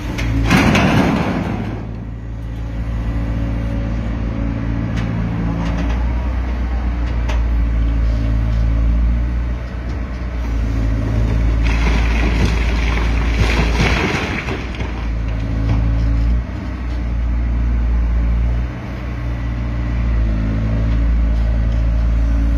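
Excavator's diesel engine running steadily while its demolition multiprocessor pulls down a building, with two spells of crashing, crumbling masonry and debris: one about half a second in and a longer one from about twelve to fifteen seconds in.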